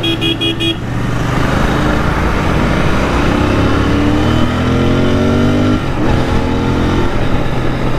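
Royal Enfield Continental GT650's parallel-twin engine accelerating under throttle. Its pitch climbs for about four seconds, drops at a gear change about six seconds in, then climbs again, over steady wind rush. A quick run of about four short beeps comes at the start.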